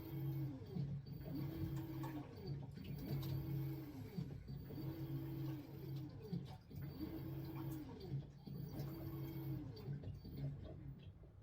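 LG top-loading washing machine's direct-drive motor agitating the pulsator, its whine rising and falling with each back-and-forth stroke, about one stroke a second. The run falls away at the end.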